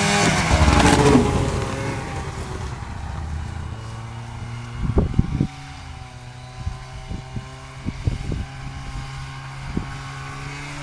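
Arctic Cat F5 snowmobile's two-stroke engine going past loudly in the first couple of seconds, its pitch falling as it moves off, then a steadier, quieter engine note. A few short knocks come over it in the second half.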